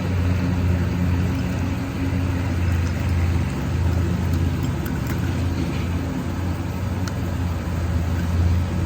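An engine running steadily with a low, even hum, like a lawn mower or vehicle engine at a constant speed, with a few faint ticks over it.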